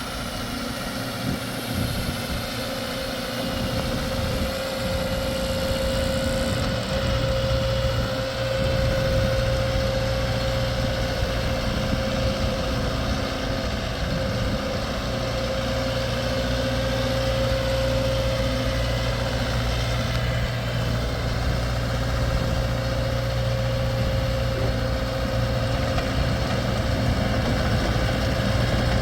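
Pile driver's engine running steadily with a constant tone above the rumble, growing louder about seven seconds in; no hammer blows.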